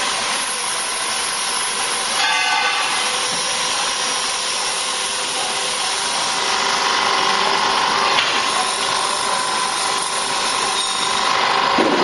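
Vertical tire baler's hydraulic unit running steadily: an even hiss with a steady whine, and a brief click about eight seconds in.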